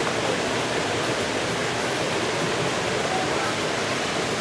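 Steady rushing of water falling in an artificial waterfall, an even, unbroken noise.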